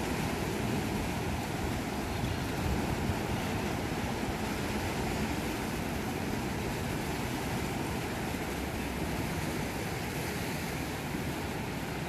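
Sea surf: small waves breaking and washing up a sandy beach in a steady rush, with a low rumble of wind on the microphone.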